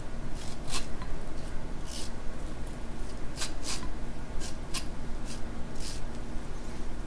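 Small handheld corn cutter scraping down an ear of fresh sweet corn, stripping off the kernels and the milky juice in a series of short, irregular rasping strokes.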